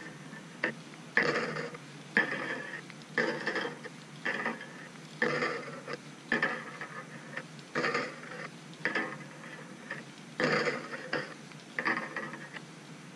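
Number 6 steel leader wire being twisted by hand into a haywire twist through a hook eye: short scraping rustles of wire and fingers, about one a second.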